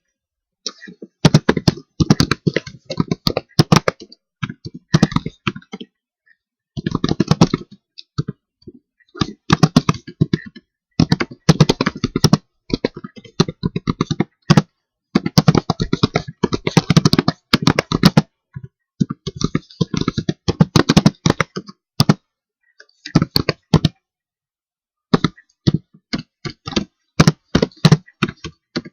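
Typing on a computer keyboard: rapid runs of keystrokes in bursts of one to three seconds, with short pauses between them.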